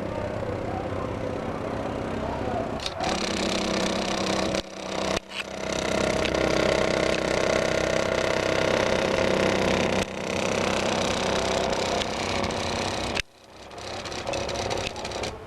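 Stepper motors of a homemade CNC plotter running, a steady whine of several tones that shifts as the moves change, with brief stops about five seconds in and again near the end.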